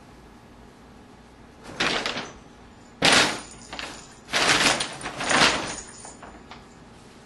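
Paper bag crinkling and rustling in four noisy bursts as a cat pounces on it and pushes inside, the loudest coming suddenly about three seconds in.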